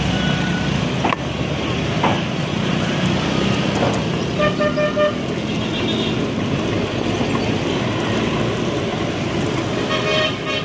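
Steady rush of wind and road noise while riding a bicycle in street traffic. A vehicle horn toots in a few quick short blasts about four and a half seconds in, and sounds again briefly near the end.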